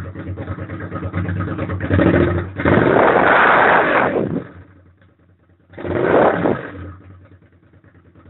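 Suzuki SV650's 645 cc V-twin engine idling, then revved twice: a long rev held for about two seconds, and a shorter blip about six seconds in, each time dropping back to idle.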